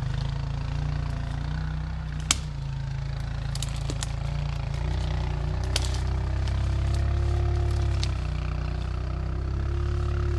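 A small off-road engine idling steadily, with a faint tone rising and falling in pitch over it from about halfway. Sharp clicks about two seconds in and again near six seconds.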